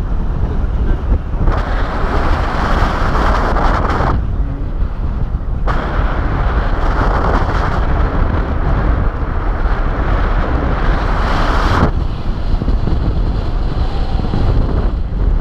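Airflow buffeting the camera microphone in paraglider flight: a steady rush of wind noise. It brightens into a louder hiss from about one and a half to four seconds in, and again from about six to twelve seconds in.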